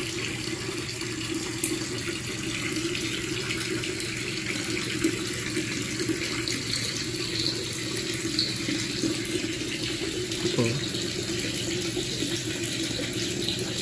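Steady running water, with a low hum underneath.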